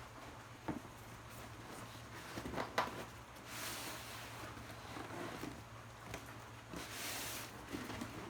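Handling noises: a few light knocks and clicks, and two rustling swishes about three and a half and seven seconds in, over a faint steady hum.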